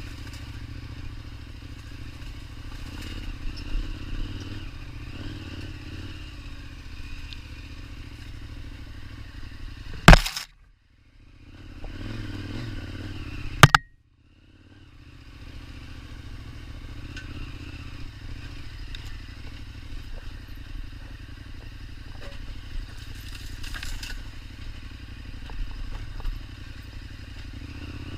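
KTM 1290 Super Adventure's V-twin engine running at low speed over a rough trail, with rattling and clatter from the ride. Two sharp loud knocks, about ten and fourteen seconds in, are each followed by a brief drop-out of nearly all sound.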